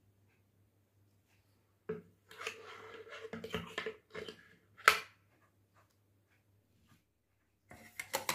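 Clinks and scrapes of a metal spoon and stainless steel bowls being handled, with a faint metallic ring during the first cluster, one sharp clink just before halfway that is the loudest, and a few more clinks near the end.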